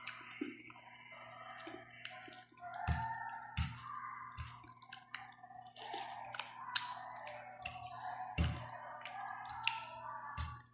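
Close-up eating sounds of noodles being slurped and chewed: wet mouth clicks and smacks, with a few soft knocks.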